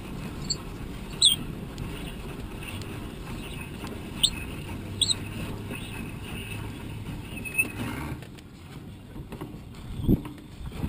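Wind buffeting the microphone as a steady low rumble, easing off about eight seconds in, with a few short high chirps scattered through it and a low thump near the end.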